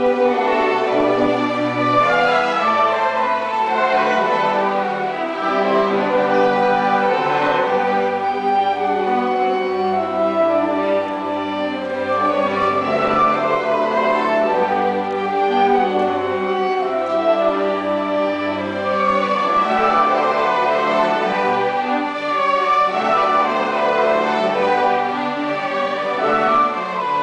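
Youth orchestra playing, with the bowed strings to the fore: violins, violas and cellos sounding many held notes together over a low bass line.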